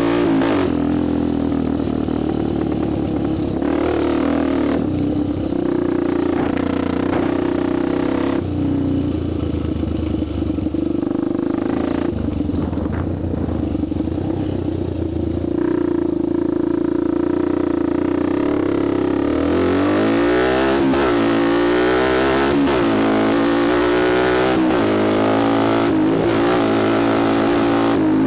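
Honda TRX250X quad's single-cylinder four-stroke engine running while ridden, holding a fairly steady pitch, then for the last third revving up and down again and again.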